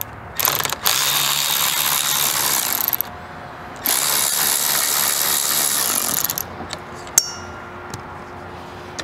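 Cordless electric ratchet with a Torx bit running to back out trim screws from a convertible top's frame, in two runs of about two and a half seconds each with a short pause between. A few small clicks follow near the end.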